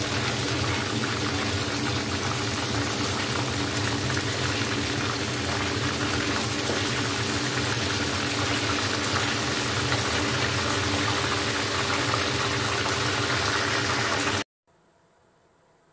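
Breaded chicken wings frying in a pan of hot oil, the oil sizzling steadily over a low, steady hum. The sizzle cuts off suddenly about a second and a half before the end, leaving only a faint hiss.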